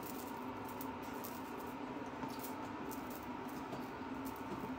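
Quiet room tone: a faint steady hum with faint scattered ticks.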